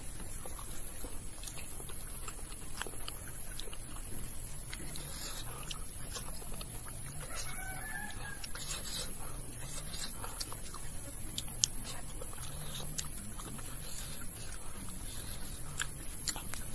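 Chickens clucking, with one clear call about eight seconds in, over a steady high-pitched hum. Soft eating noises and small clicks of fingers on a metal plate are mixed in, with one sharp click a little before twelve seconds.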